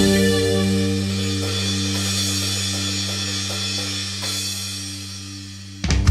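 Live rock band holding one sustained chord on electric guitar and keyboard, with cymbals washing over it, slowly fading away. About six seconds in, a sudden hard hit on the drums comes in with the band.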